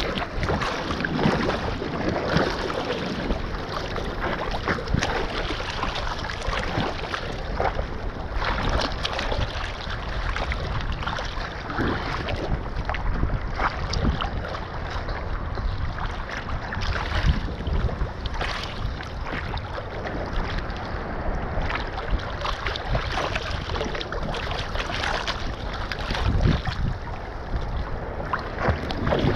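Sea water sloshing and splashing right at the microphone, with wind on the microphone. Frequent irregular small splashes and drips as a fishing net is lifted and shaken over the water.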